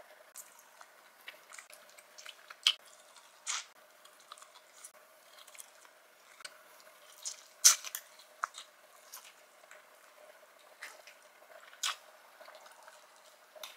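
Close-miked eating sounds from a Cajun-sauced seafood boil: soft wet chewing and mouth and finger smacks with scattered small clicks. There are a few sharper, louder smacks, the loudest about eight seconds in.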